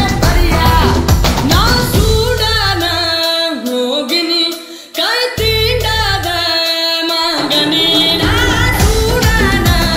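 Tamil film song: a woman singing a melody over a heavy drum and bass beat, mixed as '8D' audio. The beat drops out twice in the middle, the first time for about two seconds, leaving the voice with light backing before it comes back.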